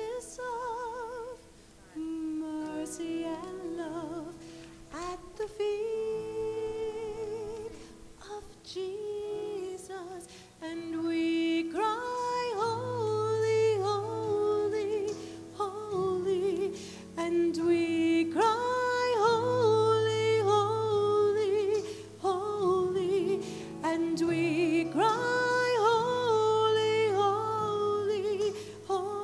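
A woman soloist singing a sacred song with wide vibrato and long held, sliding notes, over low sustained accompaniment chords. The singing grows louder about a third of the way in.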